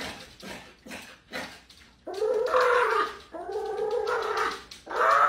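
Small dog whining and howling: a few short sharp sounds, then from about two seconds in three long drawn-out cries that bend in pitch, one after another.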